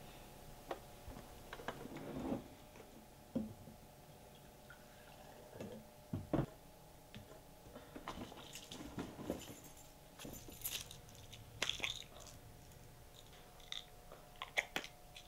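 Quiet small room with scattered soft taps, clicks and rustles of things handled at a table, over a faint steady hum. A quick cluster of clicks comes near the end.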